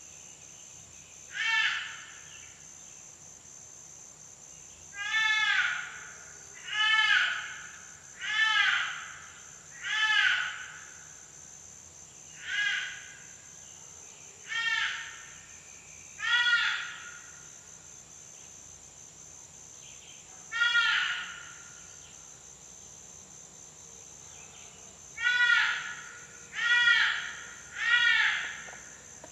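Electronic game caller playing fawn distress: high bleating cries, each rising then falling in pitch, about a dozen in all, in uneven runs with pauses between. Behind them runs a steady high drone of insects.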